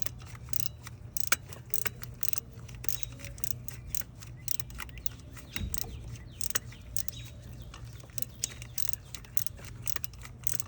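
Snap-on BXOR704 25° offset ratcheting box wrench clicking in short, irregular bursts as it is swung back and forth on a bolt.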